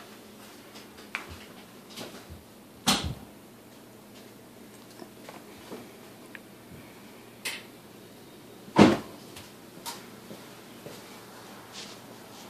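A few sharp knocks and clicks, the two loudest about three and nine seconds in, over a faint steady hiss.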